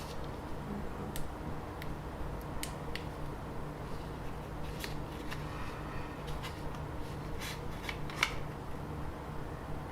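Light scattered clicks and scrapes of a caliper being slid and set against a small pocket computer, over a steady low hum.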